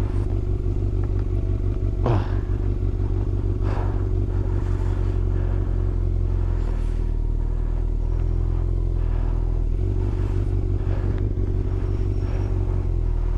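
1996 Yamaha YZF600's inline-four engine running steadily at low, even revs, as at idle.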